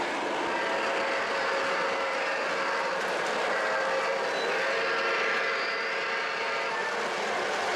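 O gauge model steam train, a New York Central locomotive hauling Pacemaker boxcars, running past on three-rail track: a steady rolling clatter of metal wheels on the rails.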